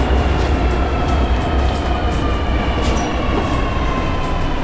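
Beijing subway train running: a loud, steady low rumble with a faint whine that slowly falls in pitch.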